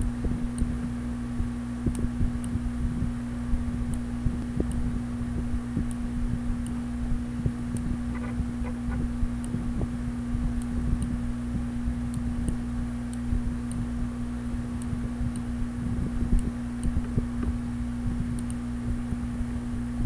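Steady low-pitched hum over a constant low rumble, unchanging throughout, with faint scattered ticks.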